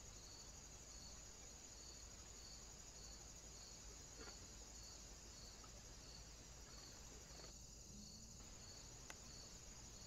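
Near silence: a faint steady high-pitched hiss with soft pulses repeating about every two-thirds of a second, and a faint click about nine seconds in.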